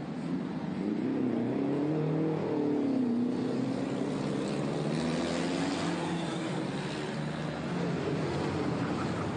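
Engines of pre-war racing cars running as they drive past, their pitch rising and falling with the revs, one car after another.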